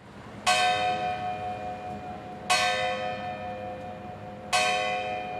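A church bell tolling: three strikes about two seconds apart, each ringing on and slowly fading.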